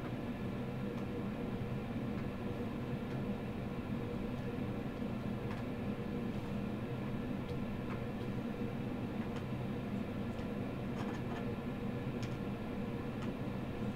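Steady machine hum holding several steady tones, with faint light ticks scattered through it, more of them in the second half, as a soldering iron tip and solder wire touch a circuit board during hand soldering.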